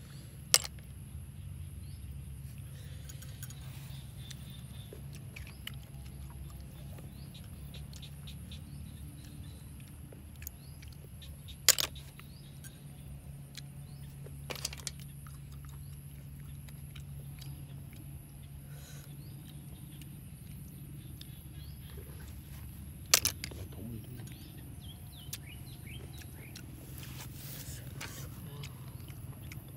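Someone eating cooked rice snails by hand: faint picking and chewing, with three sharp clinks about eleven seconds apart, typical of snail shells dropped against an aluminium pan. Under it runs a steady low hum.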